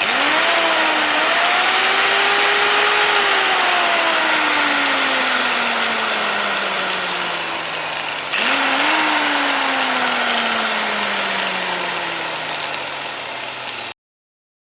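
INGCO AG23508 2350 W angle grinder motor started twice, each time winding up quickly and then slowly dropping in pitch, with a loud hiss of air and brush noise over it. The sound cuts off abruptly near the end.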